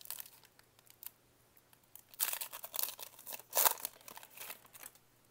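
Foil wrapper of a football trading card pack being torn open and crinkled, in a run of short, noisy bursts starting about two seconds in.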